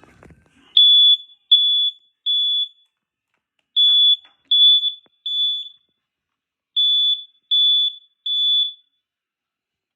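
Kidde smoke alarm sounding its high-pitched beep in the temporal-three pattern: three groups of three half-second beeps, a pause after each group, the standard signal for smoke.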